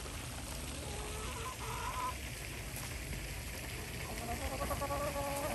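Domestic hens calling softly: a short call a little over a second in, then a longer, drawn-out call from about four seconds in.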